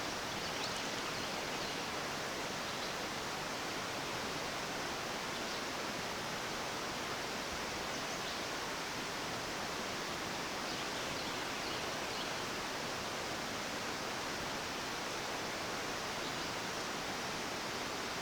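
Steady rushing of a mountain trout stream.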